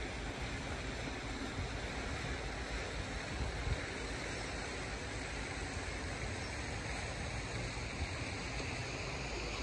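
Steady outdoor ambience: wind gusting on the microphone with an unsteady low rumble, over a constant hiss.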